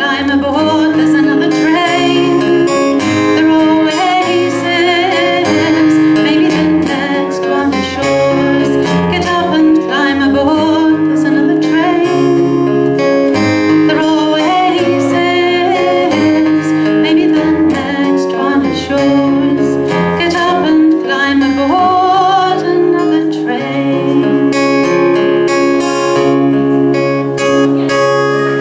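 A woman singing a folk song over a strummed acoustic guitar, performed live.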